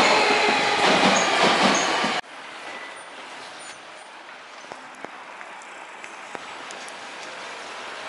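Hankyu electric train running past close by at a station platform: a loud rumble with the wheels clattering over rail joints about twice a second. About two seconds in it cuts off abruptly, leaving quiet street ambience with a few faint clicks.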